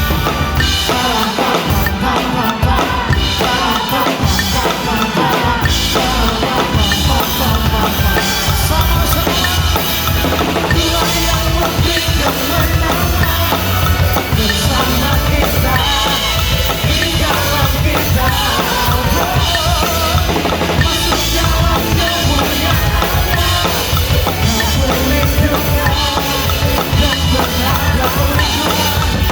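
Drum kit played fast, about 190 beats a minute, with bass drum, snare and rimshots, along with a backing song.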